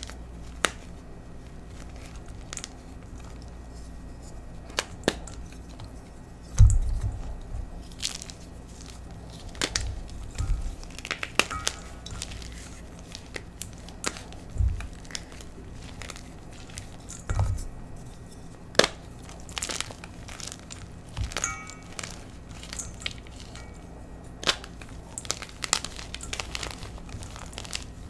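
Gym chalk chunks dusted with coloured pigment powder being crushed and crumbled by hand in a stainless steel bowl: irregular cracks and crunches throughout, with a few dull thumps, the loudest about a quarter of the way in.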